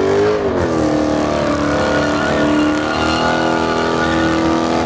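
A car engine revved hard and held at a high, steady pitch during a burnout, spinning the rear tyres; the pitch dips briefly about half a second in, then holds.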